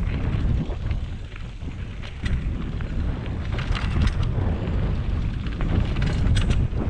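Wind buffeting the microphone during a fast mountain-bike descent on a dirt trail, a heavy gusty rumble that eases briefly about a second in. Scattered sharp clicks and rattles from the bike and tyres going over bumps come in clusters.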